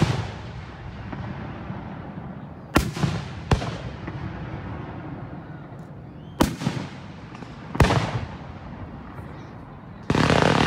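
Aerial firework shells bursting one after another: sharp bangs a second or several seconds apart, about five in all, then a louder, longer burst near the end.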